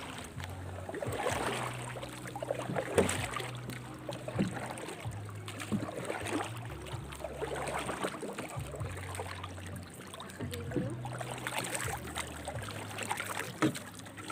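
Sea water splashing and sloshing, with irregular short splashes over a low hum that comes and goes in blocks.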